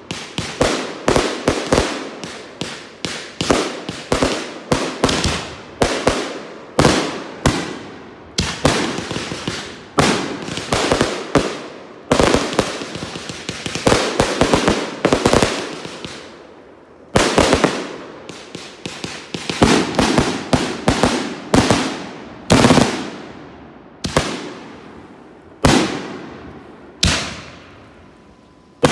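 Consumer aerial fireworks going off in rapid succession: sharp bangs of bursting shells, several a second, with crackling between them, thinning near the end to single bangs about a second apart.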